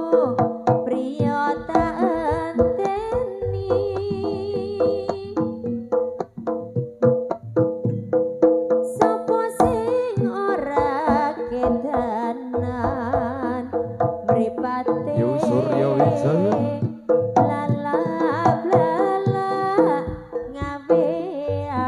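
Live Javanese jaranan music played through a PA system: kendang hand drums beat a fast, busy rhythm under sustained gamelan-style tones and a wavering, vibrato-laden melody line.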